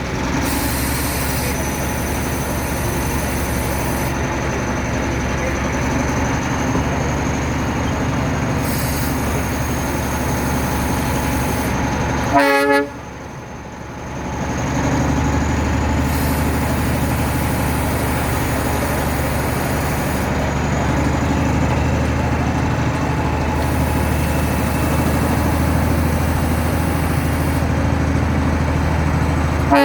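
Darjeeling toy train running with a steady rumble, with a short horn toot about twelve seconds in and another at the very end.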